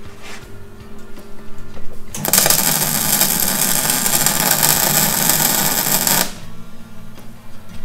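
A workshop tool running in one loud, steady burst of about four seconds, starting about two seconds in and cutting off abruptly, over background music.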